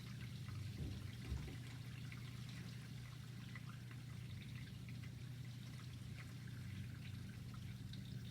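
Quiet room tone: a steady low hum with faint scattered crackling and a soft bump about a second in.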